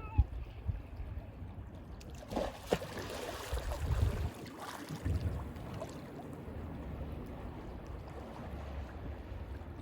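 Small sea waves lapping and splashing at the shore, with a few louder washes between about two and five seconds in.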